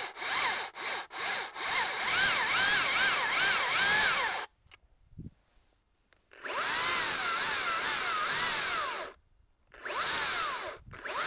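Cordless Makita chainsaw motor and chain spinning freely with no load: a few quick trigger blips, then several runs of a couple of seconds each, separated by pauses, with a whine that rises and falls.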